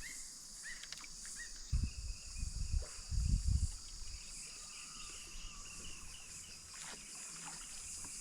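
Steady high-pitched drone of insects in creekside bush, with scattered short chirping calls, a quick run of them in the middle. A few low thumps come about two and three seconds in.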